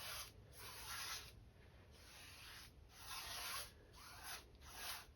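Paintbrush stroking back and forth across a stretched canvas, blending white acrylic paint into black: about six faint, scratchy brush strokes.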